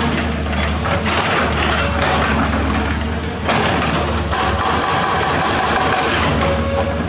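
Diesel engine of a 20-ton-class hydraulic excavator running steadily under work. The sound steps up in loudness about three and a half seconds in, with a higher whine added soon after as the load changes.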